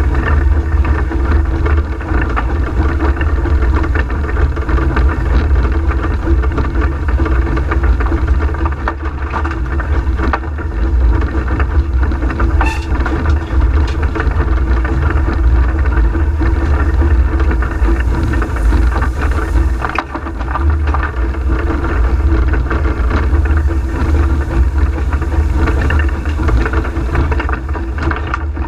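Cab noise of the Peckett industrial steam locomotive Ashington No.5 working under way: a loud, steady rumble and rattle of the engine, running gear and wheels on the rails. A sharp click about halfway through, and a brief hiss a few seconds later.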